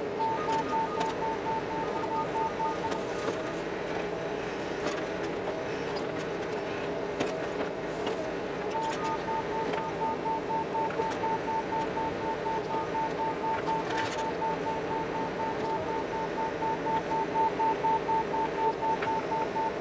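Compact excavator's engine running with a rapid electronic beeping from the machine, about four beeps a second. The beeping stops about three seconds in and starts again near nine seconds in.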